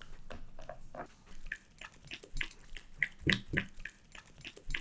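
A corgi licking and eating soft frozen custard from a paper cup, close up: a quick, irregular run of wet tongue-and-lip smacks and clicks, several a second, thicker after about a second and a half.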